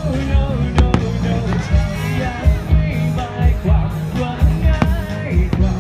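Loud music with a heavy, steady beat and a melody, with sharp cracks of fireworks bursting about a second in and again near the end.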